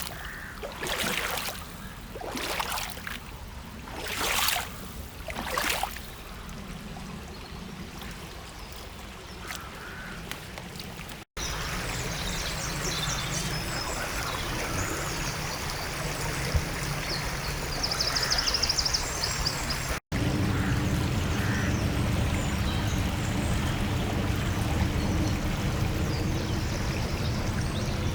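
A river running steadily, with birds chirping and trilling over it in the middle stretch. There are several brief sloshing surges of water in the first few seconds, and the sound changes abruptly twice.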